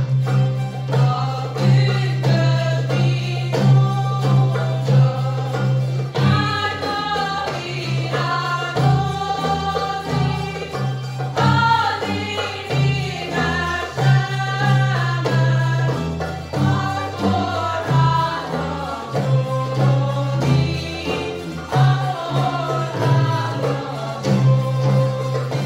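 Hungarian citera (zither) ensemble playing a folk tune over steady low bass notes, with voices singing along, coming in strongly about six seconds in.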